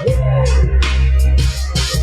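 Hip-hop beat playing back from Maschine, with a heavy sub-bass and repeating drum hits with hi-hats, and a short falling synth tone about half a second in.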